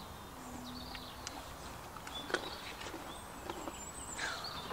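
Quiet outdoor ambience with faint, scattered bird chirps and a few soft clicks; one call near the end slides down in pitch.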